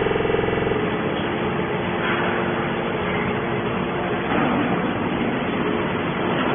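Steady mechanical running noise. A pitched hum during the first second gives way to an even, rough noise.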